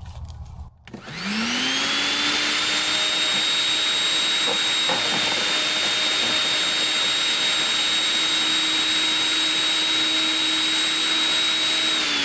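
Electric wood chipper's motor switched on: its whine rises quickly to a steady pitch over a loud rushing hiss, runs steadily, and begins to wind down, falling in pitch, at the very end.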